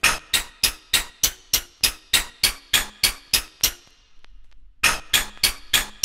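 Rhythm track of sharp, bright clicks about three a second, built from sampled soap sounds, with a faint low tone under them. It stops for about a second near 4 s and then starts again.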